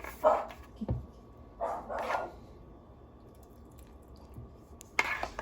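Pet dog barking in short separate bursts, with a low thump about a second in.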